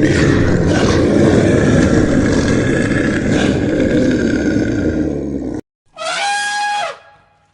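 An animal's loud, rough roaring and grunting that runs for about five and a half seconds and then cuts off abruptly. After a moment of silence comes one short, high call of about a second, with a clear pitch that falls slightly.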